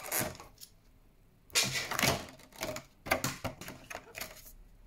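Trading cards and cardboard packaging being handled: several short bursts of rustling with light clicks and taps.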